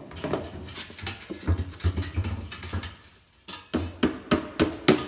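Plastic airbox of a Kawasaki Tecate 3 knocking and scraping against the steel frame tubes as it is forced up into place, with repeated clunks and rubbing.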